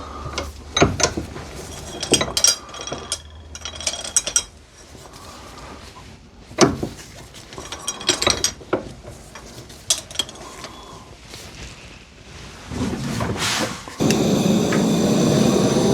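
Metal clinks and knocks as the seized steel G-clamp is handled and set in place. Near the end a steady loud blowing noise starts abruptly as a heating tool is switched on to heat the clamp.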